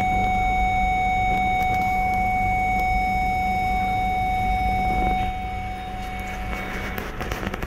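Honda Civic rear parking-sensor buzzer sounding one continuous warning tone with the car in reverse, over the engine's low idle hum. The solid tone is the closest-obstacle alarm, here given with nothing behind the car: a faulty parking sensor giving a false warning. The tone cuts off about seven seconds in.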